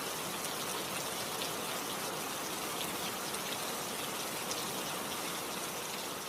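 Steady heavy rain, a dense hiss with many individual drops ticking through it.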